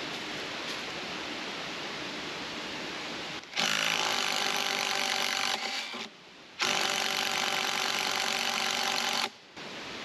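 Cordless power driver run in two bursts of about two and three seconds, a short pause between, trying to back a long deck screw out of a bridge board. The screw is stuck fast.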